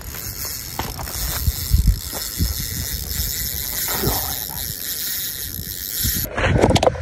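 Wind buffeting a phone's microphone: low rumbling gusts over a steady hiss. Near the end the sound changes abruptly to louder, close rumbling and handling noise.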